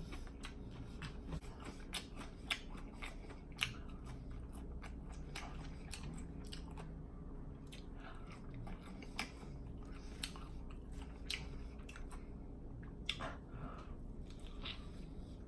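Close-miked chewing and mouth smacking as a person eats, with irregular wet clicks and light crunches.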